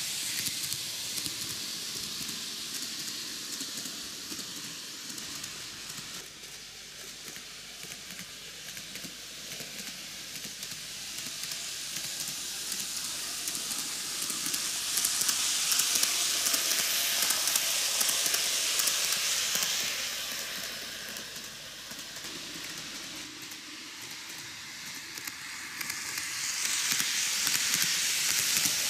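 TOMIX N-gauge model of the Kintetsu 80000 series Hinotori running on a loop of track: a steady high-pitched hiss of wheels and motor that grows louder as the train passes close and quieter as it goes round the far side, rising and falling twice.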